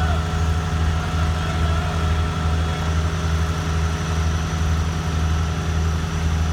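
Concrete boom placer's engine running steadily, a deep unbroken drone.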